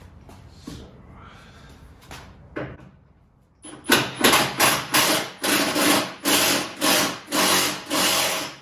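Hand ratchet with a T40 Torx bit loosening a tailgate hinge bolt. A few soft clinks come first, then from about four seconds in a quick run of about a dozen back-and-forth ratcheting strokes, roughly two and a half a second.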